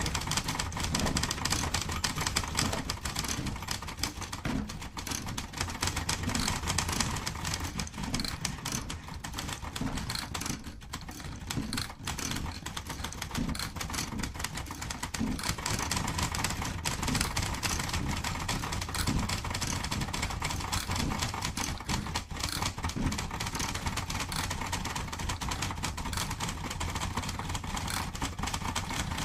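Mechanical typewriter keys striking in quick, irregular succession, a dense run of clicks and clacks, over a steady low rumble.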